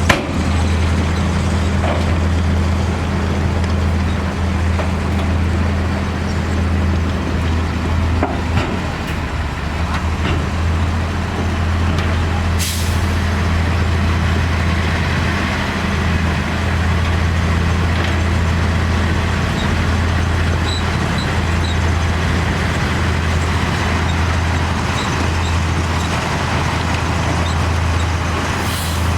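Heavy diesel engine of earthmoving machinery running steadily under load, with two short hisses of compressed air, one midway and one near the end, like a truck's air-brake release.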